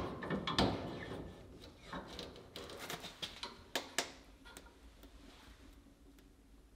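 Metal clanks and clicks from the doors of a cast-iron wood stove being worked by hand: a loud clank at the start as the firebox door is latched shut, scattered knocks, then two sharp clicks close together about four seconds in as the lower ash door is unlatched and opened.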